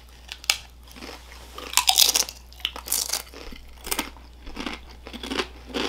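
Crisp Doritos tortilla chips being bitten and chewed by two people: a string of irregular crunches.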